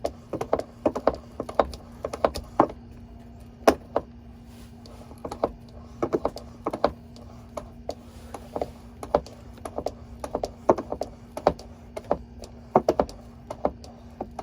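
Hand fluid pump being stroked to push gear oil into a van's differential: a long string of short plastic clicks and clacks, often in quick pairs, over a faint steady low hum.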